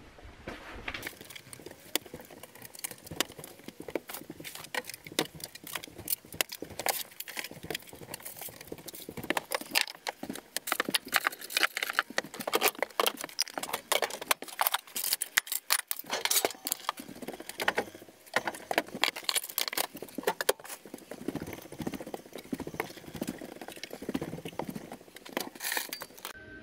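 Dense, rapid clattering, knocking and rustling of household things being handled and packed away in a travel trailer's cabinets and counters.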